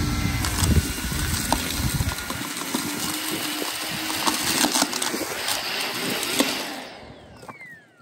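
Dyson Gen 5 Detect cordless stick vacuum running at full suction on fine dirt, with grit clicking and crackling up the wand. About seven seconds in it is switched off, and its motor whine falls in pitch as it spins down.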